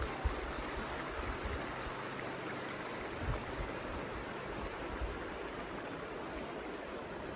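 Shallow, rocky mountain creek running over stones, a steady rushing babble of water.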